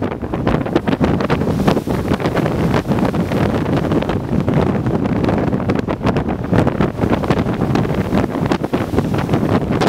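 Gale-force wind, Beaufort 8 at about 36–39 knots with stronger gusts, buffeting the microphone: a loud, uneven rush broken by frequent buffeting thumps.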